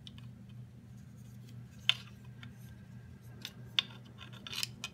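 Hard plastic parts of a Daisy Powerline 880 BB gun clicking and scraping as the replacement bolt and handle are worked into the receiver half: two sharp clicks about two and four seconds in, then a short run of scraping clicks near the end, over a steady low hum.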